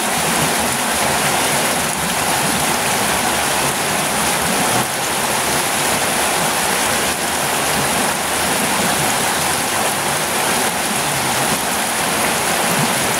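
Water of a small waterfall pouring over a rock ledge into a pool: a steady, unbroken rush and splash.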